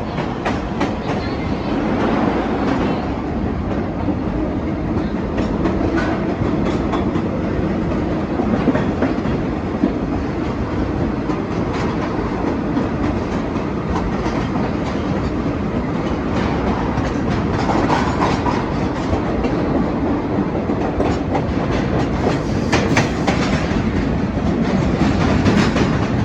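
A vintage New York City subway train running: a steady rumble of wheels on rail with clickety-clack over the rail joints and scattered sharp clicks throughout.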